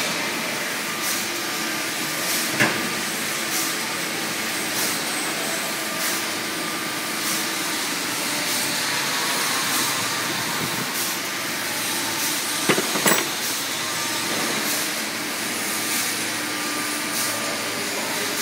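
Press brake running idle with a steady mechanical hiss and hum, a faint tick about once a second, and a few sharp clicks about two and a half seconds in and again near thirteen seconds.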